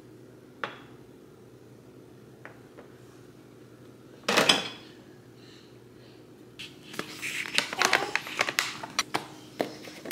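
Dishes, a plastic lid and the wire rack of an open dishwasher being handled by a small child: a few light clicks, one loud clatter about halfway through, then a busy run of clinks and rattles near the end.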